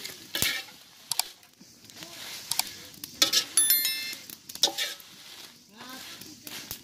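Perforated metal spoon scraping and clattering against a large iron wok as dried red chillies are stirred over the heat, with sizzling. Midway, a brief high metallic ring.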